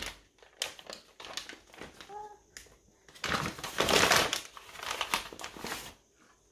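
Light taps, then rustling as flour is scooped by hand and scattered over a clear cutting board, densest from about three to six seconds in.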